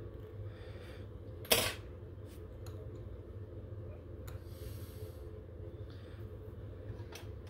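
Small handling sounds while thread is wound and worked at a fly-tying vise: one sharp click about a second and a half in, then a few faint ticks, over a steady low hum.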